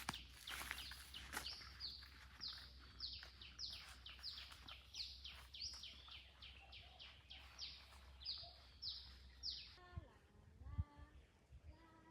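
A bird calling a rapid run of high, falling chirps, about two a second, which stops a couple of seconds before the end. Near the end comes a short wavering pitched sound, and a faint low hum runs underneath.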